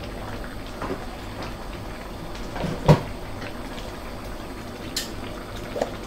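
Pot of sour bamboo-shoot and fish curry simmering on the stove with a steady low hum, a sharp knock about three seconds in and a few lighter clicks near the end.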